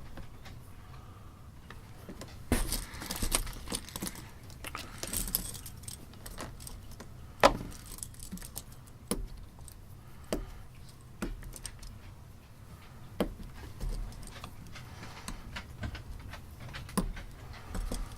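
Small metal banana plugs clinking and rattling as they are handled in their container, in scattered sharp clicks with short bursts of rustling.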